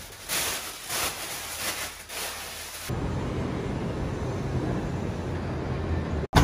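Plastic shopping bags rustling several times as groceries are unpacked, then, about three seconds in, a steady rushing noise that cuts off sharply near the end.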